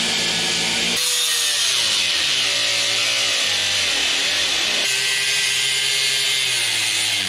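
Handheld power grinder with a cut-off disc cutting through the steel frame and bolts of a metal shipping crate: a loud, steady, high-pitched whine and hiss. Its pitch sags and recovers several times as the disc bites into the metal, and the sound changes abruptly about a second in.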